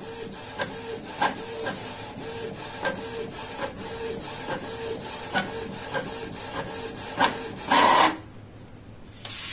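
Canon Pixma MG2570S inkjet printer printing a colour page: a repeating mechanical whir with regular ticks as the print head works across the sheet, then a short, louder whir about eight seconds in.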